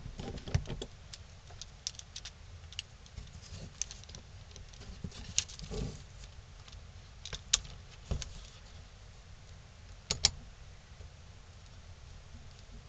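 Metal bar clamps clinking and knocking as they are slid into place and tightened on a glued stack of wooden pieces, with scattered sharp clicks throughout and a few louder knocks around the middle and near the end.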